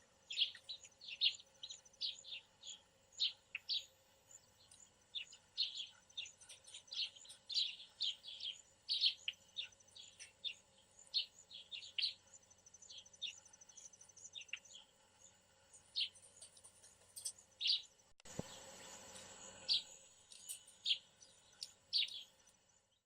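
Wild songbirds chirping and calling in quick, overlapping short notes, over a faint steady high insect trill. A brief rush of noise comes about three quarters of the way through.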